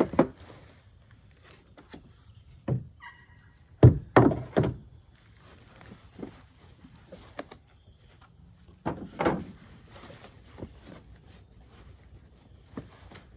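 Knocks and thuds of prefab cat house panels bumping against their cardboard shipping box and the wooden porch as they are lifted out and set down, with rustling of the box. The loudest knocks come about four seconds in, with another cluster around nine seconds.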